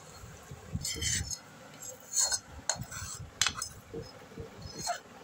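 A metal spoon scraping and clinking against a pan and a stainless steel mixer jar as cooked gongura leaves are scooped across, in a run of irregular clinks and scrapes.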